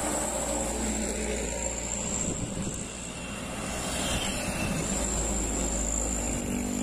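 Heavily loaded diesel trucks driving past one after another, engines running and tyres rumbling on the road. The sound dips about three seconds in, then swells again as the next truck comes by.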